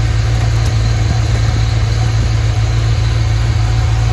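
Fox-body Mustang's engine idling smooth and steady with a low even hum, just brought back to life after sitting about two and a half years.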